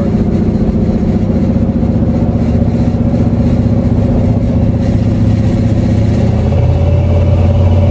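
Ford 351 Windsor V8 pickup engine and exhaust, heard from inside the cab while cruising at a steady speed. About six and a half seconds in, its deep drone gets stronger and a little louder.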